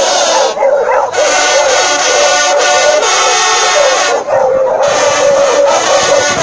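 French hunting horns (trompes de chasse) playing a fanfare in several parts, with a pack of hounds baying and howling along over the horns.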